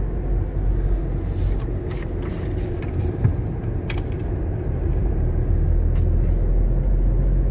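Steady low rumble of a car driving, road and engine noise heard inside the cabin, with a few faint clicks.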